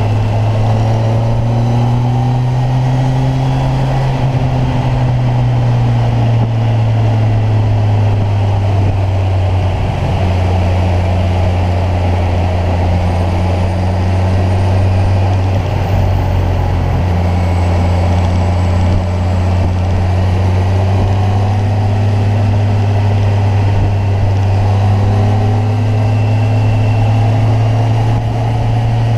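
Kawasaki Ninja 1000's inline-four engine running at a steady cruise, its note sagging slightly in the middle and climbing back near the end.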